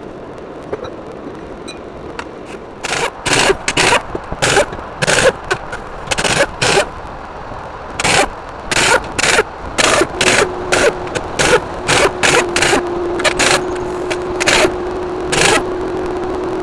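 Impact wrench firing in many short bursts, a few tenths of a second each, as it works bolts on the engine's cylinder head. From about ten seconds in, a steady hum runs beneath the bursts.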